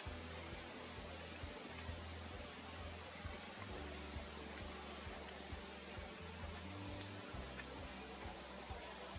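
Insects trilling steadily at a high pitch with a fast pulsing beat, over a faint low hum.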